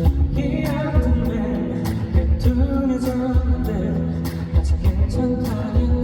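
A live band plays a pop-rock ballad with drums, bass and guitar, and a male voice sings the melody over it.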